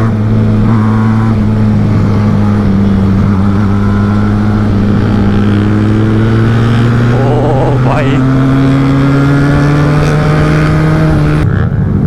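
Benelli Tornado 302R parallel-twin motorcycle engine, heard from on the bike with wind rush: it pulls steadily at cruising speed and its pitch climbs slowly. Just before the end the throttle closes and the note drops.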